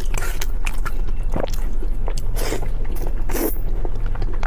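A person biting and chewing crispy food close to the microphone: irregular crunches and crackles, the loudest about a second and a half in and again past three seconds, over a steady low hum.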